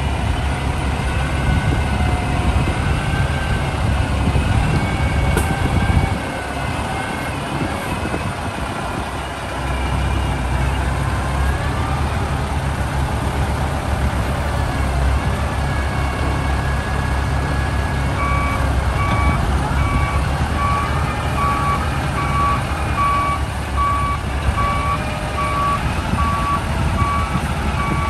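Olympus FS270 wheel loader's diesel engine working, its pitch rising and falling as the loader lifts and dumps its bucket. It eases off briefly about a quarter of the way in. From about two-thirds through, its reversing alarm beeps steadily, a little more than once a second.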